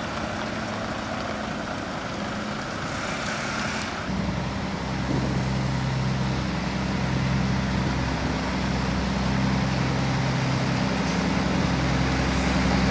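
Heavy lorry diesel engines running steadily as the lorries crawl along hauling fairground ride trailers. From about four seconds in, a nearer Volvo FH12 tractor unit's straight-six diesel takes over with a louder, steady low drone.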